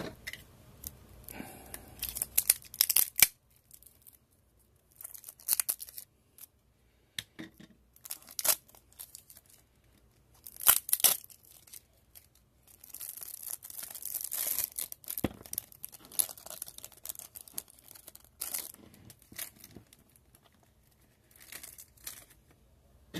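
Plastic shrink wrap being torn and crinkled off a stack of trading cards, in irregular bursts of tearing and rustling with short pauses between, the longest stretch a little past halfway.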